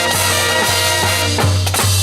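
Fire-department marching band playing: brass and wind hold a sustained chord while drums strike a few accents.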